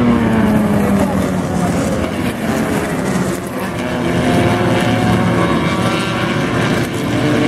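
Engines of a pack of small open-wheel race cars running hard on track, several engine notes overlapping and rising and falling in pitch as they accelerate and shift.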